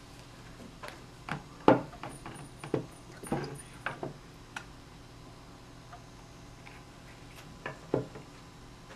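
Parts of a BT TM7 paintball marker being handled and fitted together during reassembly: a run of light clicks and knocks, the loudest about two seconds in, most of them in the first four seconds and two more near the end.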